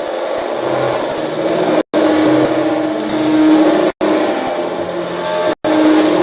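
Loud, dense electronic noise drone with held tones shifting inside it, broken by sudden brief cut-outs to silence about every two seconds.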